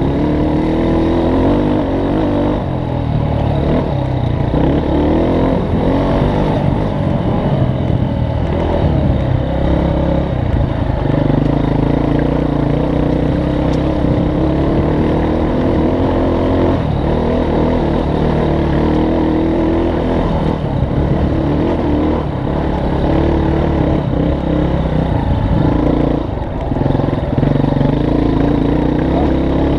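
Off-road vehicle's engine running on a trail, its pitch rising and falling with the throttle, with a few short knocks and rattles along the way.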